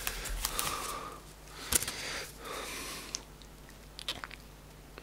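Rustling and handling noise of cardboard and paper as items are taken out of a fan box, with a sharp tap a little under two seconds in and a few light ticks about four seconds in.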